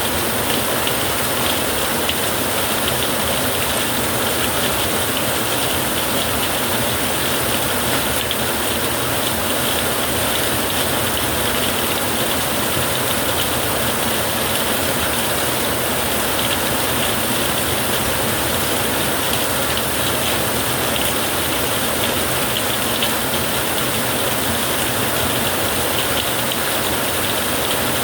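Steady rain drumming on a tin roof: a dense, even patter of drops on sheet metal.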